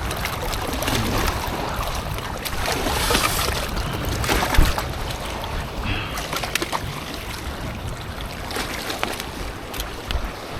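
Wind rumbling on the microphone over water noise, with a few small clicks.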